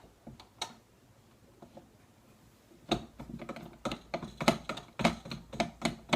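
A run of small, irregular clicks and taps, starting about three seconds in, as the finial is screwed down onto the lamp harp over the shade.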